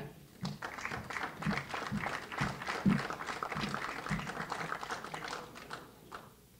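Audience applauding, a patter of many claps that thins out and dies away near the end.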